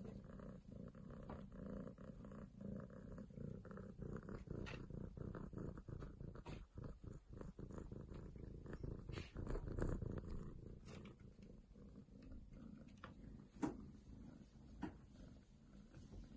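Domestic cat purring steadily, with two sharp clicks near the end.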